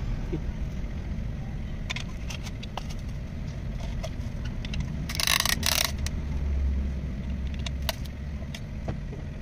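Scattered metal clinks and taps as a piston in a ring compressor is fitted into a cylinder bore of an Isuzu 4JB1 diesel block, with a short noisy scrape about five seconds in. A steady low rumble runs underneath.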